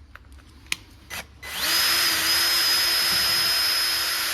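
A few light clicks, then about a second and a half in a cordless power drill/screwdriver spins up and runs at a steady speed with an even whine, backing out the screws that hold the electric unicycle's bumpers.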